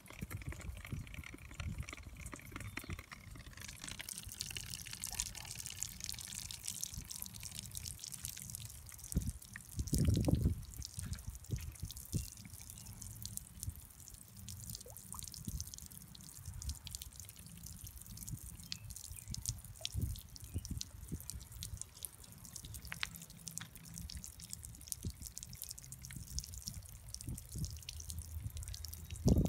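Thin jets of water from a homemade balloon fountain falling into a stone birdbath basin: a steady patter of drips and small splashes over a low rumble, with a brief louder rumble about ten seconds in.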